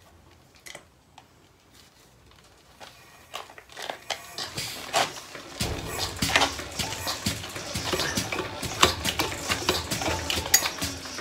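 Lister stationary diesel engine being turned over by hand with its starting handle. About five seconds in, a fast, irregular metallic clatter of the handle and engine starts up over a low rumble and grows louder as the flywheels spin up.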